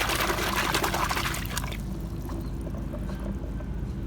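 Water pouring and splashing as a muddy toy is rinsed, stopping about a second and a half in. A steady low hum continues underneath.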